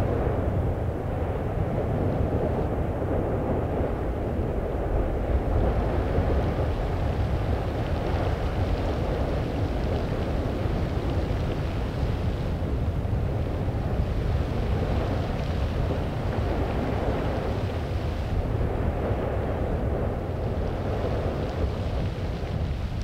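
Steady low rumbling noise of an erupting volcano and its lava flow, with no distinct bangs or tones; it brightens a little in the middle and again near the end.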